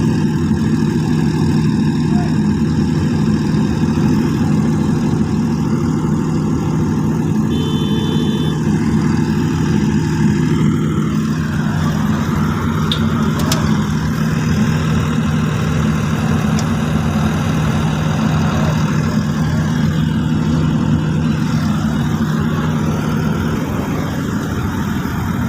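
Stick-welding arc crackling steadily over a low hum, as the repaired Panasonic YD400AT3 arc welder runs a test weld now that its faulty control transformer has been replaced.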